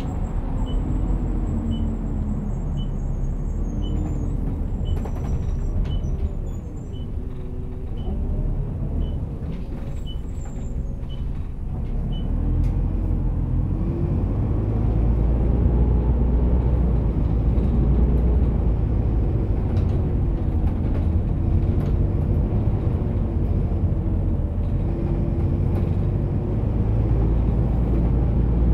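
Bus engine and road rumble heard from inside the moving bus, the engine note rising and falling with gear changes and growing louder after about twelve seconds as the bus speeds up. For the first twelve seconds a light, regular ticking about one and a half times a second runs over it, with a few faint high squeals.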